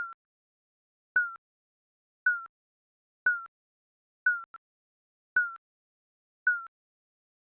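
Electronic countdown timer beeping once a second, ticking off each second of the countdown. Each beep is a short, mid-high tone that dips slightly in pitch, with silence in between.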